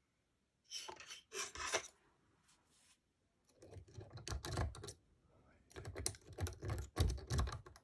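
Thin metal pick scraping and clicking inside a drilled Ultion euro lock cylinder held in a vise, as it works the pins through the drill hole. The sound comes in irregular bursts of quick taps and scrapes, with a short pause about two seconds in.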